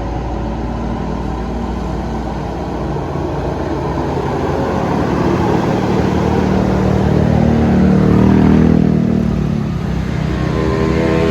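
A large bus engine passing close by, growing louder to a peak about three-quarters of the way through and then fading, over road and traffic noise. Steady pitched tones begin near the end.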